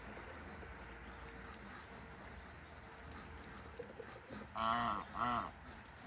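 Domestic goose honking twice in quick succession near the end, two loud calls about half a second apart.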